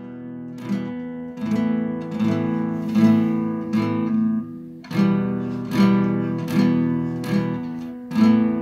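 Acoustic guitar strummed in a steady rhythm, about one strum every three-quarters of a second, the chords ringing on between strokes.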